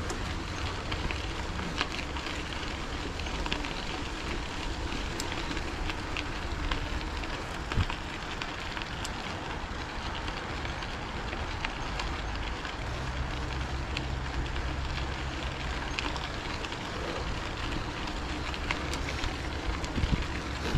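Bicycle riding: steady tyre noise with a light crackle and scattered small clicks and rattles, over a low wind rumble on the microphone.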